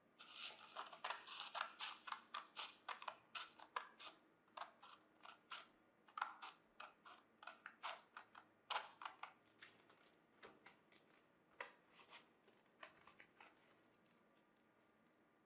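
A rapid, irregular series of sharp clicks or snips, about three or four a second, thinning out and stopping near the end, with no motor running.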